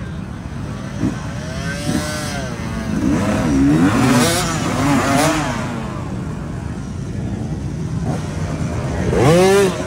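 Dirt bike engine running and revved in several bursts that rise and fall in pitch: about two seconds in, again for a couple of seconds around the middle, and loudest near the end.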